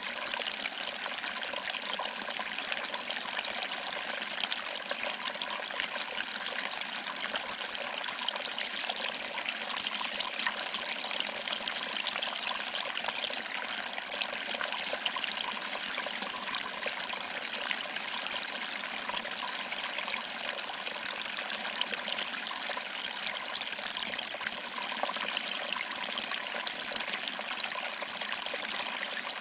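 Small waterfall: water trickling over rocks and splashing into a pool below, a steady, even rushing hiss with little low rumble.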